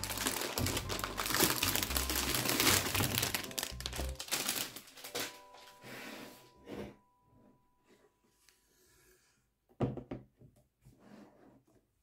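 Plastic anti-static bag crinkling loudly as a motherboard is slid out of it, dying away after about four seconds. A single knock near the end.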